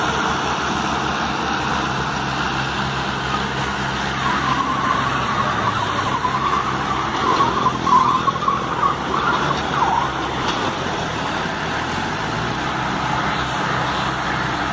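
Tractor engines running steadily under load as one tractor tows another pulling a loaded sugarcane trailer. From about four to ten seconds in, a wavering high-pitched tone sounds over the engines.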